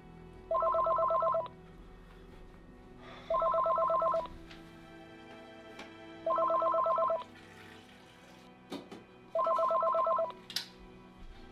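Electronic telephone ringer trilling in four rings, each about a second long and about three seconds apart.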